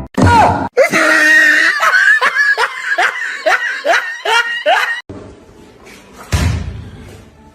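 Loud laughter in a rapid run of short falling bursts for about five seconds, then a dull thump about six seconds in.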